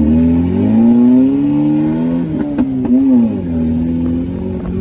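Turbocharged Honda F20B engine, mid-mounted in a CRX and heard from inside the cabin, pulling the car away under throttle. Its pitch climbs for about two seconds, wavers with a couple of sharp clicks, drops, then holds a steady pull.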